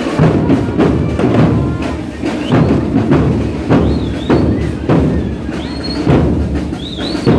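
Marching band playing, with drums keeping a steady beat and a few short, high sliding notes over it.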